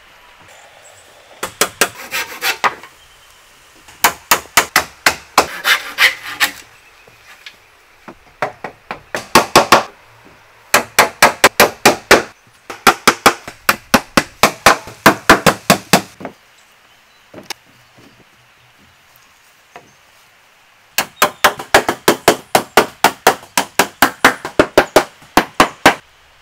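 Hammer driving nails into rough wooden slab boards: about six runs of quick, even strikes, several a second, with short pauses between runs.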